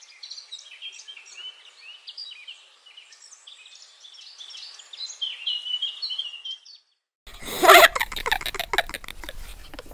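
Small birds chirping: many quick, high, overlapping chirps that stop abruptly about seven seconds in. After a moment of silence, a sudden loud, harsh burst of noise breaks in, loudest just after it starts.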